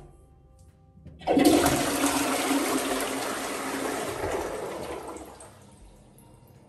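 Wall-hung toilet with a concealed cistern flushing: a loud rush of water starts suddenly about a second in, runs for about four seconds, then dies away.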